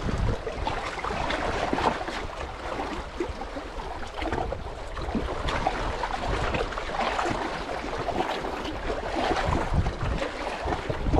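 Small waves lapping and splashing against shoreline rocks, an irregular wash of water, with gusts of wind rumbling on the microphone near the start and end.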